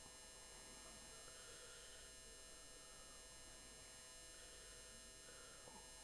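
Steady electrical mains hum with a faint high whine, unchanging throughout.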